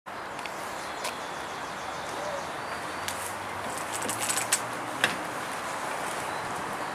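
Steady background hiss of marina ambience with a few short, sharp clicks and clinks, including a quick cluster about four and a half seconds in.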